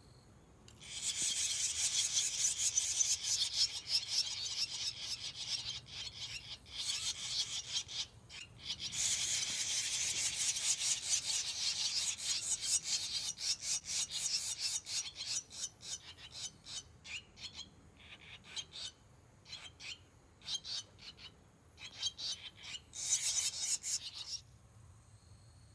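Barn swallow nestlings begging for food: a raspy chorus of rapid high chirps. It comes in long bursts with a short pause, thins out past the middle, flares once more near the end and then stops.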